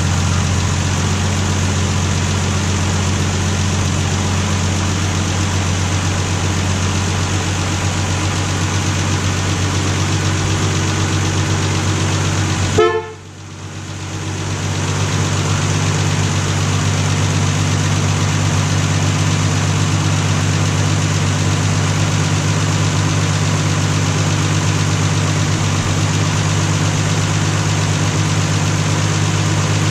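Plymouth Valiant's 225 slant six engine running steadily at idle, freshly cold-started after months of storage. About thirteen seconds in there is one brief sharp sound, after which the engine sound drops away and builds back over a couple of seconds.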